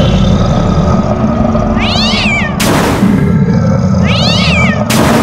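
A cartoon cat meows twice, each high meow rising and falling, over loud background music. A short burst of noise follows each meow, the first just under 3 seconds in, the second near the end.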